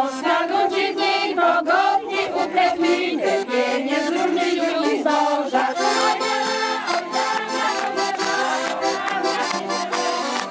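Accordion playing a lively folk tune, with a group of women singing along in the first half. A steady beat comes in about six seconds in.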